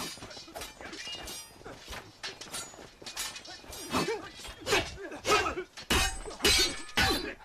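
Swords clashing in a sparring fight: a rapid run of sharp strikes that grows denser and louder about halfway in, with short grunts between blows.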